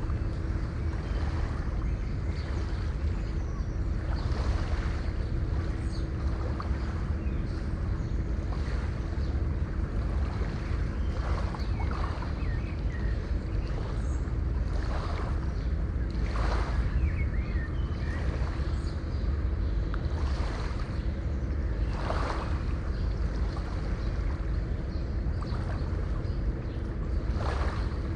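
Distant sea surf: a steady low rumble of the ocean, with waves washing in every few seconds. A faint steady hum runs underneath.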